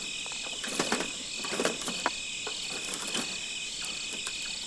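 Crickets chirping in a steady night chorus, with a few scattered short clicks and knocks, the loudest about a second in and just after one and a half seconds.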